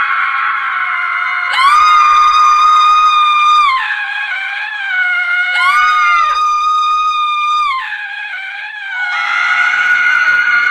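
Women's high-pitched screams used as horror sound effects: long, steady shrieks layered over one another, with two fresh screams breaking in sharply about a second and a half in and again about five and a half seconds in, each held about two seconds before trailing off.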